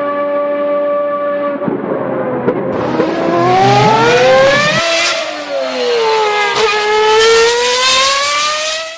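Formula 1 car engine at high revs: a steady high pitch at first, then, after about a second and a half, the revs climb, drop sharply about 5 seconds in, sink further and climb again to the end.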